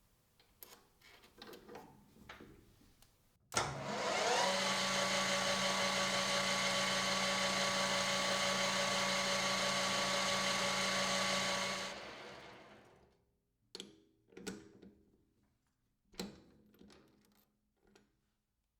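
An electric power tool's motor switches on and spins up with a rising whine, runs at a steady speed for about eight seconds, then is switched off and winds down. A few light knocks and clicks come before and after it.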